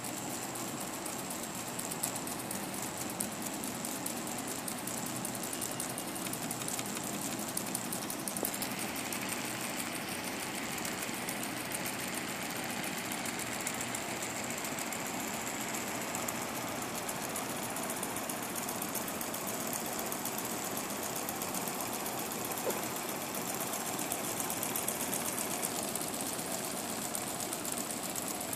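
Weeden Model 8 toy steam engine running fast under steam, a steady rapid ticking clatter from its piston and flywheel. A hiss joins in about eight seconds in and fades out near the end.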